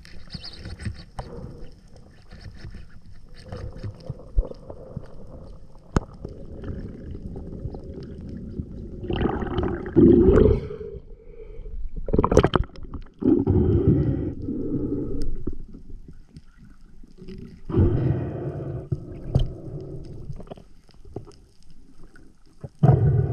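Water gurgling and sloshing around a diver's underwater camera during a free dive, with several louder bursts of rushing, splashing water a few seconds apart as the diver moves through and near the surface.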